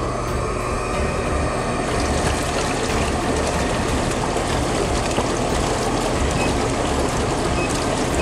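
Empava whirlpool tub's air-bubble jets running: water churning and bubbling over a steady low motor hum, building over the first couple of seconds and then holding steady.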